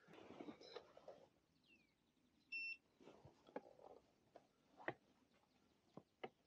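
Begode Mten4 electric unicycle's beeper giving one short, high beep about two and a half seconds in, the signal of the wheel being switched on. A few faint clicks and knocks from handling follow.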